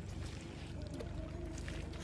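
Outdoor wind rumbling on the microphone, with a faint, steady, level hum coming in about a second in.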